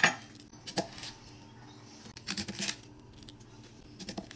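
Brussels sprouts being peeled and cut with a kitchen knife on a wooden cutting board: a few short knocks and rustles, the first one the loudest.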